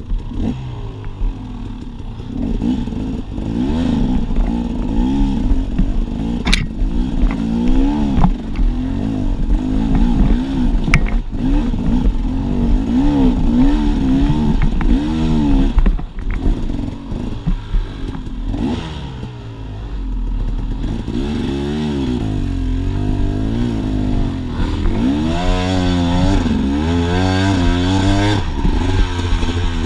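Dirt bike engine crawling over rock ledges, the throttle blipped again and again so its pitch keeps rising and falling. A couple of sharp knocks stand out.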